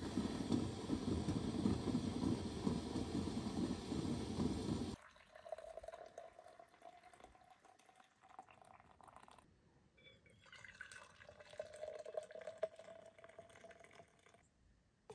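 A loud rushing noise for about five seconds that cuts off abruptly. Then hot coffee is poured from an enamel coffee pot into insulated tumblers: two pours, each a steady trickling fill tone, the second rising slightly as the cup fills.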